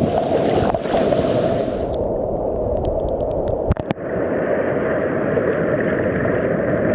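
Surf and rushing water, a steady full rush that turns duller about two seconds in, with a brief break just before the four-second mark.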